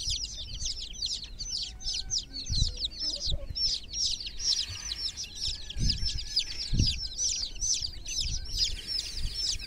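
A brood of chicken chicks peeping without pause, a dense chorus of many short, high, falling peeps. A few dull low thumps come through near three, six and seven seconds in.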